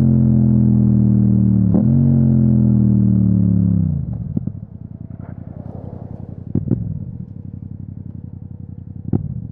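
Yamaha MT-07's parallel-twin engine through an Akrapovič exhaust, its note falling steadily as the bike decelerates, with a brief dip about two seconds in. About four seconds in it drops to a much quieter, low, evenly pulsing run, with a few sharp clicks.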